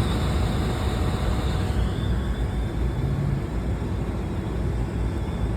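Steady noise of the split system's air handler running, its blower still pulling air in through the opened condensate drain line.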